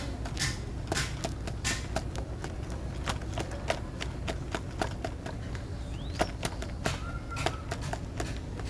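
Irregular sharp clicks and taps, several a second, over a steady low hum.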